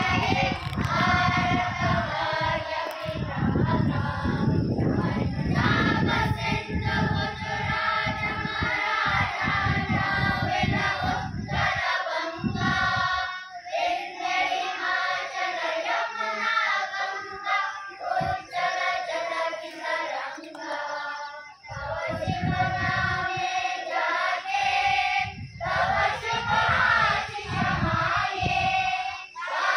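A group of people singing together, many voices in unison, with gusts of wind rumbling on the microphone at times.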